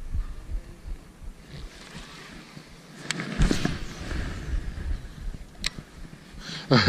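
Wind buffeting the microphone in uneven low thumps, with a brief rushing swish about three seconds in and a couple of sharp clicks as a baitcasting rod and reel are handled.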